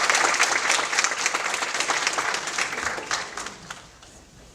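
Audience applause in a school assembly hall, many hands clapping at once, thinning out and dying away over the last second or so.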